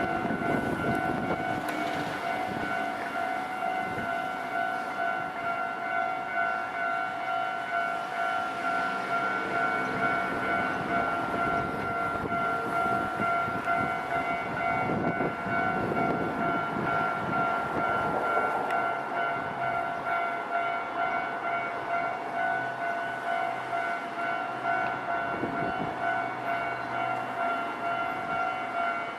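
Japanese railway level-crossing warning bell ringing steadily in a repeating two-tone pattern, while a train rumbles through the crossing, swelling about halfway through and again near the end.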